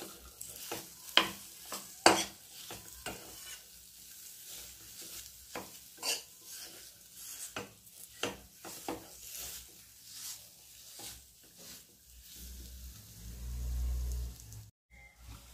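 Metal spoon scraping and knocking against a nonstick pan as dates are stirred while frying in oil, over a light sizzle. There are sharp knocks throughout, the loudest about a second and two seconds in, and a low rumble near the end.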